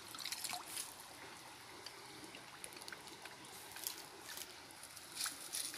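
Water trickling steadily, with scattered light ticks and rustles over it.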